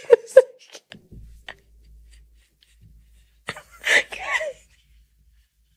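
Women laughing hard and nearly silently: a laugh trailing off at the start, faint breathy gasps, then a short burst of wheezing laughter about three and a half seconds in.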